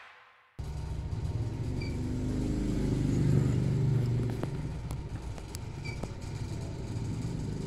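Starts after a brief silence: outdoor vehicle noise with a low engine rumble that builds to its loudest about three to four seconds in, then eases off, with a few faint clicks.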